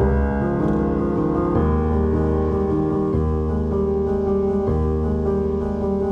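Background music: piano or electric keyboard playing sustained chords that change every second or two.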